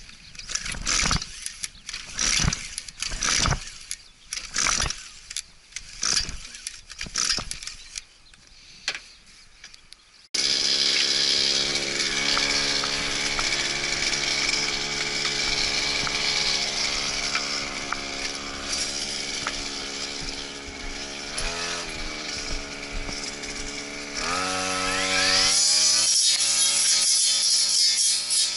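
Brush cutter's small engine being pull-started: a series of short, uneven rattling yanks on the recoil starter without the engine running. Then, after a sudden cut, the engine running steadily at idle, blipped once, and throttled up to a higher steady speed near the end.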